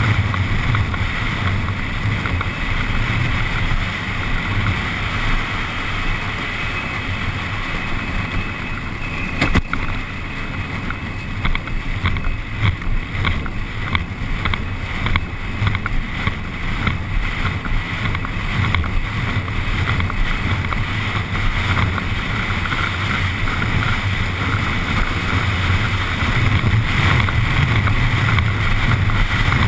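Carrilana, an engineless gravity racing cart, speeding downhill: wind buffets the microphone over the steady rumble of its wheels on asphalt. There is a sharp knock about ten seconds in, then a stretch of quick rattles and knocks from the chassis over the road surface.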